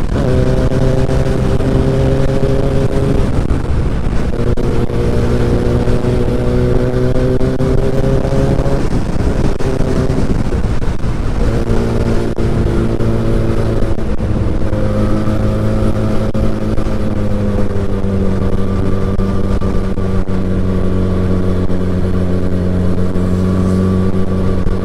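Sport motorcycle engine, the rider's Yamaha R6, pulling at speed. Its pitch climbs through the gears with short dips at four upshifts in the first half, then holds a nearly steady cruise. A steady rush of wind and road noise lies underneath.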